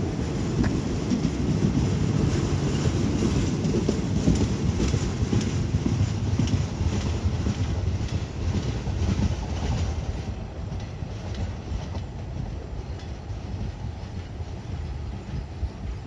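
Passenger coaches rolling slowly over a set of railway points, a steady low rumble with wheels clicking over the rail joints and switch gaps. The sound drops off after about ten seconds as the last coach passes and draws away.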